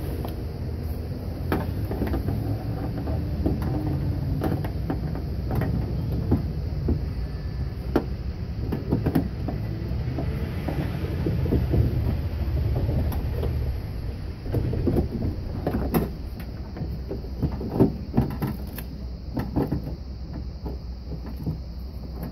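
Scattered clicks and knocks from hands working inside a car door's cavity, handling the door-lock cables and latch among the sheet metal. They grow busier and louder after about fourteen seconds, over a steady low rumble.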